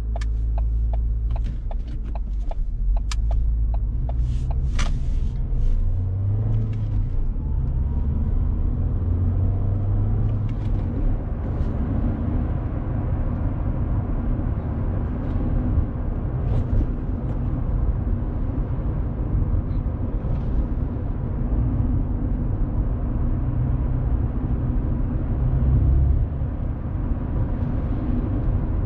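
Steady low engine and road rumble of a car heard from inside the cabin while driving. A run of evenly spaced ticks sounds in the first few seconds, and a faint rising engine note follows a few seconds later as the car picks up speed.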